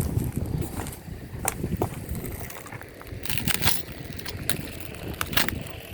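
Packaging crinkling and rustling with scattered clicks, over a low rumble in the first couple of seconds.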